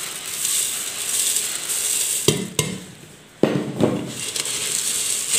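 Dry puffed rice poured from a glass bowl into a steel bowl, a crisp rushing rustle. A few sharp knocks come between about two and three and a half seconds in, then the puffed rice rustles as a hand tosses it in the bowl.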